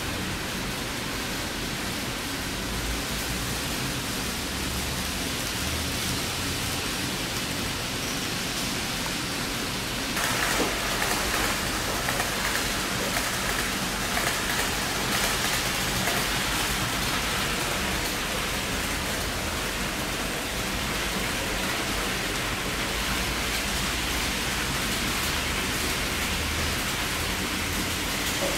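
Model trains running on layout track: a steady rushing rattle of wheels on rails, louder and brighter about ten seconds in.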